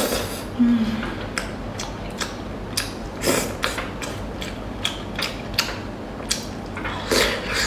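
Close-miked mouth sounds of eating oysters in sauce: slurping them from the shell and chewing, with irregular wet clicks and smacks about once or twice a second and a longer slurp twice.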